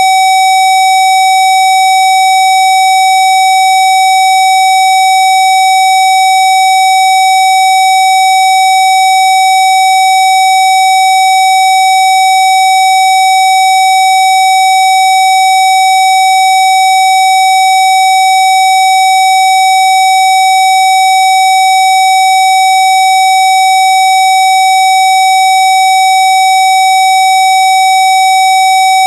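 A steady, unbroken electronic test tone at about 760 Hz, one of the Rife 'healing' frequencies, rich in overtones and without any change in pitch or loudness.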